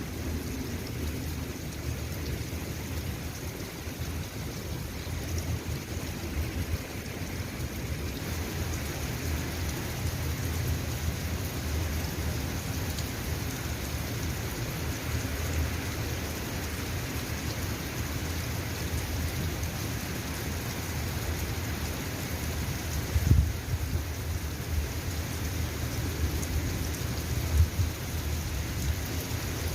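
Steady rain falling, with a low, uneven rumble underneath and two brief louder low thumps near the end.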